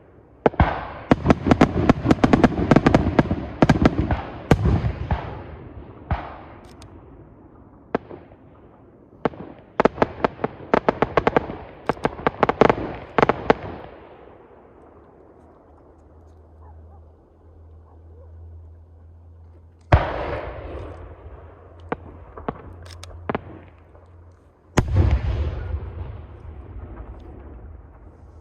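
Aerial fireworks shells bursting: two long stretches of rapid crackling reports mixed with bangs, then a lull, then two single loud booms that each ring and rumble away.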